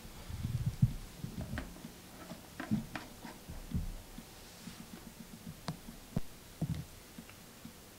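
Plastic handling sounds: a black plastic venturi insert being turned and screwed onto the rear of a plastic air cleaning gun, with low knocks and light clicks scattered through.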